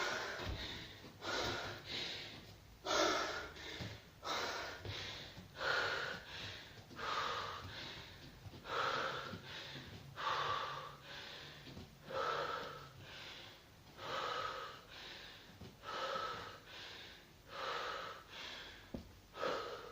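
Heavy, rhythmic breathing of a person exerting under a 34 kg kettlebell during squats: a loud breath in and out about every second and a half.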